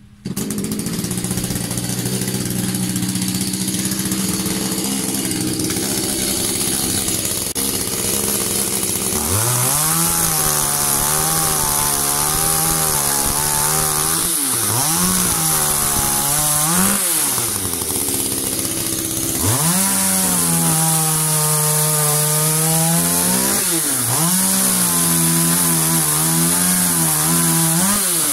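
ECHO two-stroke chainsaw starting up at the outset and running steadily, then cutting through a log. Under load its engine note drops and wavers, and it rises and falls several times as the bar works through the wood.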